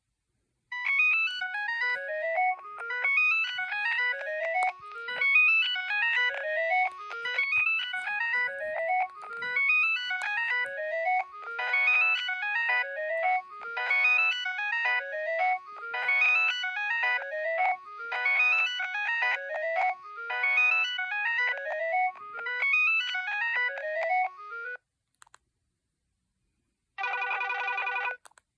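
Nokia 2112 mobile phone playing one of its preloaded ringtones through its speaker: quick runs of descending electronic notes repeat over and over, with fuller, buzzier notes joining about halfway through. The tune stops about 25 s in, and a short steady buzzy tone sounds near the end.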